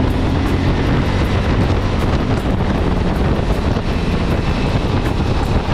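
Steady wind rush on the microphone of a camera mounted on a moving motorcycle, with the bike's engine and road noise running underneath at cruising speed.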